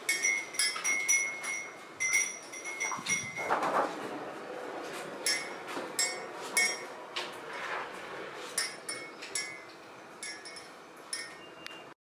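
A small wind chime tinkling: irregular light clinks that each leave the same few high ringing notes, thick at first and thinning out toward the end.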